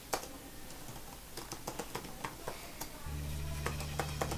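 Typing on a laptop keyboard: irregular key clicks. A low steady hum comes in about three seconds in.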